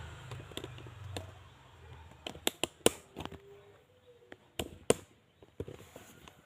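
RC model excavator: a low motor hum dies away over the first two seconds, then a string of sharp plastic clicks and knocks, the loudest about three and five seconds in.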